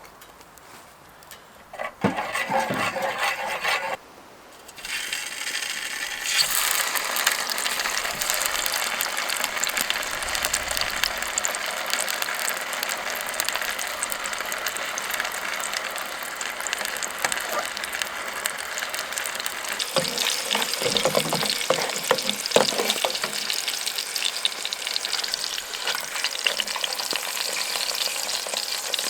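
Food frying in a mess tin over a small wood-burning stove: a short burst of sizzling about two seconds in, then a steady crackling sizzle from about five seconds on, with a few scraping stirs of the pan around the twenty-second mark.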